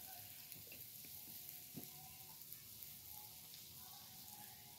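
Near silence: faint room tone and steady microphone hiss, with one small tick about two seconds in.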